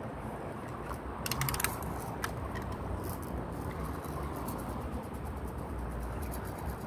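Lever-action BB rifle being cocked: a quick run of sharp metallic clicks about a second and a half in, then a single click, over a steady low wind rumble on the microphone.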